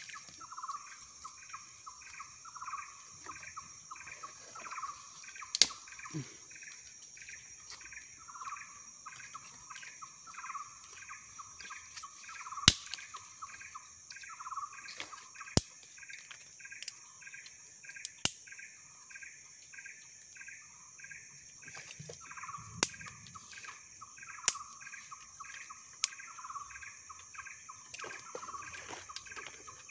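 Outdoor nature chorus: a steady high-pitched drone of the kind insects make, overlaid with two rhythmic chirping calls, one repeating about every two seconds and a quicker one several times a second. Sharp single clicks cut in every few seconds.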